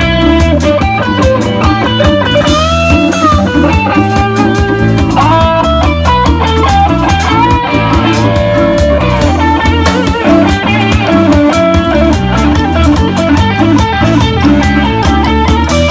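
Rock band playing: an electric guitar lead with sliding, bent notes over bass guitar and drums with a steady cymbal beat.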